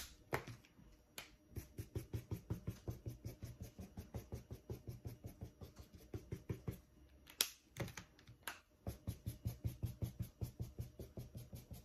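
Washable felt-tip marker scratched quickly back and forth on a paper towel over a table: a fast, even run of short strokes, several a second, with a brief pause a little past halfway. A few louder single knocks stand out among the strokes.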